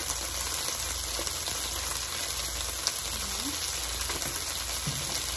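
Green beans frying in a hot nonstick pan, giving a steady sizzle.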